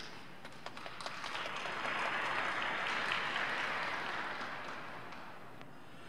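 Audience applause in an arena: a few scattered claps, then clapping that swells to a peak and dies away over a few seconds.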